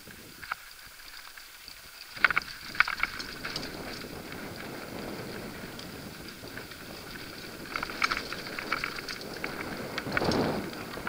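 Mountain bike rolling fast down a dirt and rock singletrack: tyres crunching over the ground and the bike rattling and clicking over bumps, starting about two seconds in, with wind rushing on the microphone, swelling near the end.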